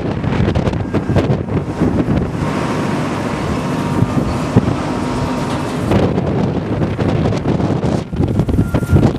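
Wind gusting across the microphone: a heavy, low rumbling noise that rises and falls with the gusts.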